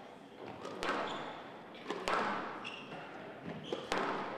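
Squash rally: the rubber ball cracking off racquets and walls, with three loud sharp hits roughly a second or two apart and smaller knocks and short squeaks between.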